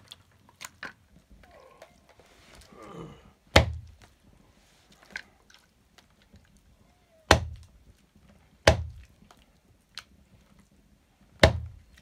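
A large knife chopping raw buffalo meat into big chunks on a wooden log chopping block: four heavy thunks, one about a third of the way in and three in the second half, with light clicks from handling the meat between them.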